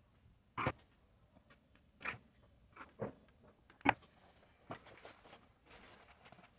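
A few light, sharp knocks and clicks, roughly a second apart and loudest just before four seconds in, from a small circuit board and soldering tools being handled on a work table; a faint hiss follows near the end.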